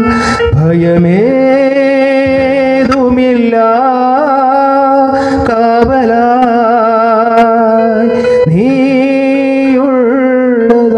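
A man singing a Malayalam Christian devotional song solo into a handheld microphone. He holds long notes with a wavering vibrato and twice slides up into a new phrase.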